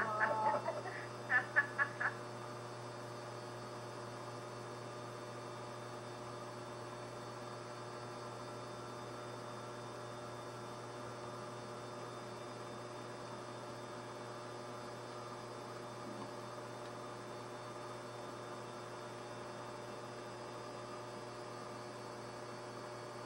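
Steady electrical hum with several faint steady tones above it. A brief cluster of short pitched sounds in the first two seconds.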